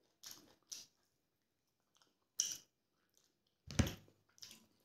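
Close-miked mouth sounds of a person eating rice and chicken curry by hand: five short, separate chewing smacks, the loudest a little under four seconds in.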